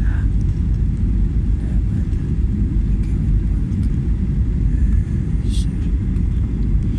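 Steady low rumble of an airliner's cabin noise, engines and airflow, during its low final approach to land, with a brief hiss about five and a half seconds in.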